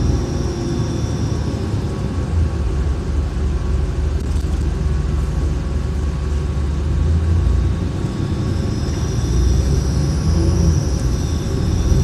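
Inside a moving city transit bus: steady low rumble of the engine and road. A faint high whine is heard at the start and comes back from about eight seconds in.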